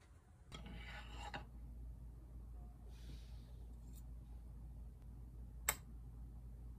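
A brief rustle about half a second in, then near the end a single sharp clink of a metal spoon against a small glass soy-sauce dish, over a low steady hum.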